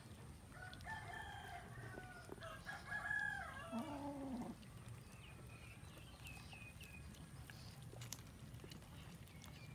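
A rooster crows once in a drawn-out call of about four seconds, starting about half a second in. A few faint, short, high chirps follow it.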